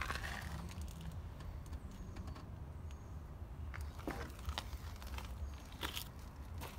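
Footsteps crunching on loose gravel and dirt, a handful of irregular steps mostly in the second half, over a steady low rumble.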